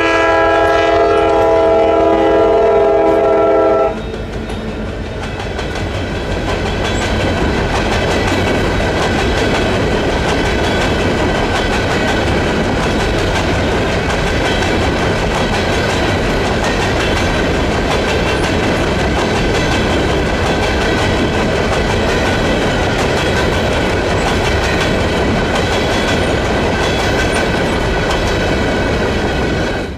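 Diesel locomotive horn sounding a chord of several tones for about four seconds, then cutting off, followed by a train rolling past steadily until the sound drops away abruptly at the end.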